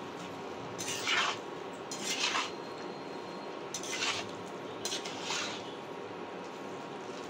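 A spatula stirring and turning wilted spinach in a nonstick frying pan: four or five short scrapes and rustles against the pan, over a steady faint hum.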